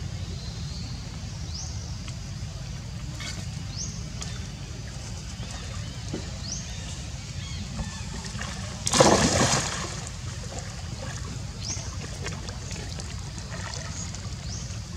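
A macaque wading in shallow pond water, with sloshing and one loud splash about nine seconds in as it moves. Short rising high chirps repeat in the background over a steady low rumble.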